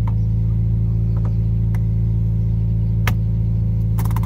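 Subaru BRZ's flat-four engine idling steadily, heard from inside the cabin, with a few light clicks and a short cluster of them near the end.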